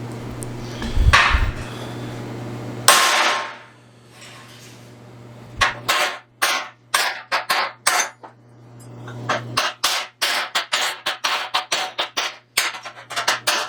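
Hammer blows on a square-ended chisel against a steel truck bumper, metal on metal, beating a pushed-in dent back out. One heavy blow about three seconds in, then from about six seconds on a run of sharp strikes that quickens to two or three a second, over a steady low hum.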